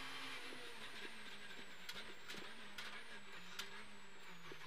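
Renault Clio R3 rally car's four-cylinder engine heard from inside the cabin, holding a steady note that sinks slowly in pitch as the car eases off. A thin high whine sits above it, and a few sharp ticks come from about two seconds in.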